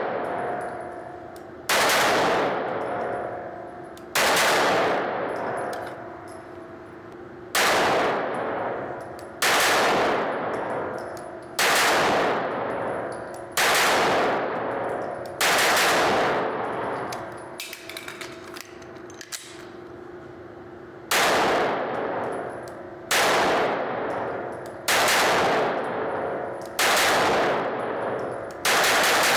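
IWI Masada 9mm pistol firing single shots at a slow, steady pace, about two seconds apart, each shot ringing out in the echo of an indoor range. Near the middle the firing stops for a few seconds, with only a few faint clicks, then resumes at the same pace.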